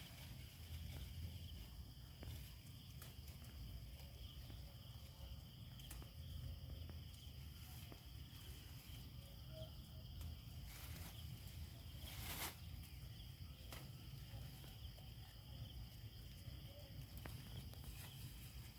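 Faint outdoor ambience: a steady high-pitched hum and a low rumble, with a few soft clicks and one louder rustle or clatter about twelve seconds in.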